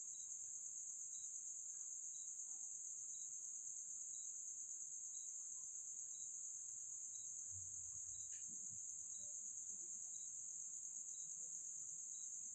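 Faint insects in the night: a steady, unbroken high trill, with a separate short chirp repeating about twice a second. A soft low thump and a small click come about eight seconds in.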